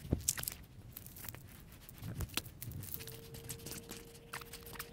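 Scattered small clicks and rustles of hands handling a plastic tackle box and fishing tackle while re-rigging a line. A faint steady hum comes in about three seconds in.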